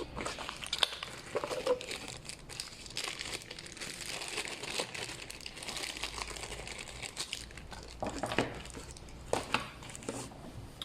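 Plastic packaging crinkling and rustling as it is handled, with scattered small clicks and a few sharper knocks near the end.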